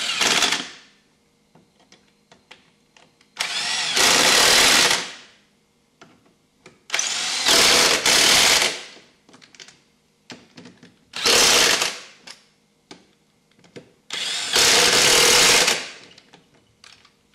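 A handheld power tool run in five bursts of one to two seconds each, with small clicks and knocks between them, as the wheel's lug nuts are run on at the end of a rear tire change.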